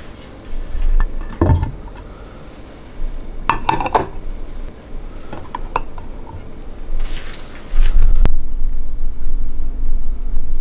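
Stainless-steel dog food bowl holding dry kibble, clinking and knocking against hard surfaces as it is handled and set down: several separate knocks, with a cluster of clinks about four seconds in and a short rattle near seven seconds.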